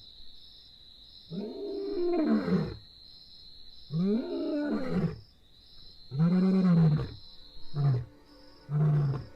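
Lion roaring: three long roars about two seconds apart, then a run of shorter, deeper grunts coming more quickly near the end, the typical tail of a lion's roaring bout.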